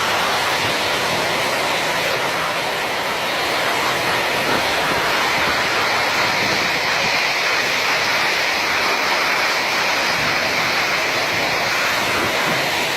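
Strong storm wind blowing, a steady loud rushing noise.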